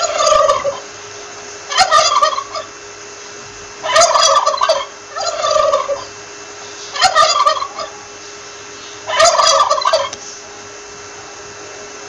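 Male turkey gobbling: six quick rattling gobbles, each under a second, repeating about every one and a half to two seconds, with a pause near the end.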